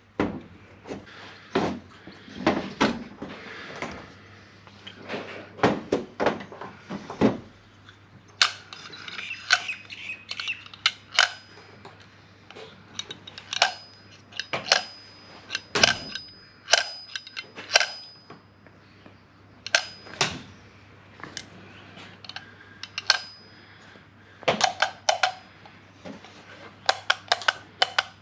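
Irregular clicks, taps and metallic clinks of hand tools and small parts as a Toyota 1UZ-FE VVTi drive-by-wire throttle body is taken apart to pull its motor out. A few of the clinks in the middle ring briefly.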